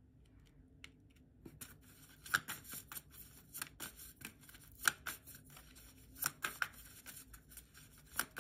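A deck of tarot cards being shuffled by hand: a soft rustle of cards broken by sharp snaps at irregular intervals, starting about a second and a half in.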